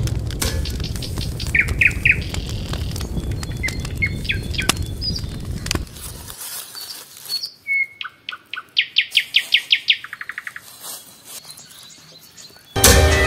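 Birds chirping and calling, with short rising chirps and, about two-thirds of the way in, a fast run of evenly repeated notes. Under the first half a low rumble with scattered clicks cuts off suddenly about halfway through.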